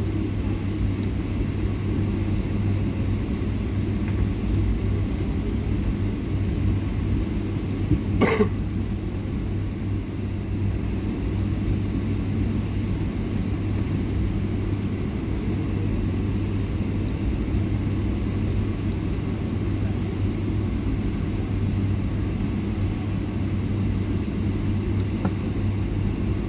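Steady cabin rumble of a jet airliner taxiing, with a constant low hum from the engines at low thrust. A single short, sharp sound stands out about eight seconds in.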